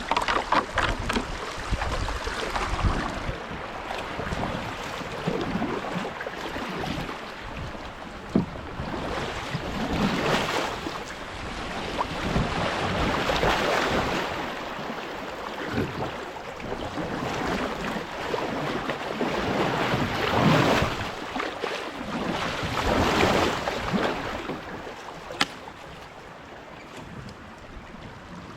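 Kayak paddle strokes splashing and sloshing in creek water, the sound swelling and fading every few seconds.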